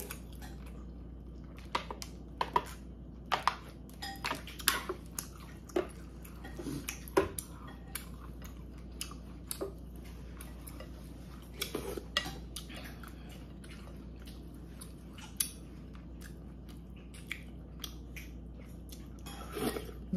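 Spoon and chopsticks clinking and scraping against a ceramic soup bowl during eating, as irregular sharp clicks and taps, thicker in the first half and again about twelve seconds in.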